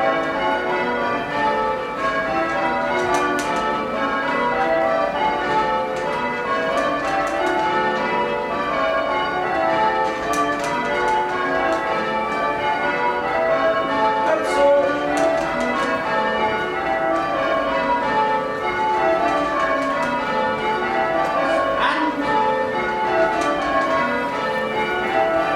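Change ringing on Blackburn Cathedral's ring of tower bells. The bells are struck one after another in rows, each row running down from the highest note to the lowest, with the strokes overlapping and ringing on in an even rhythm.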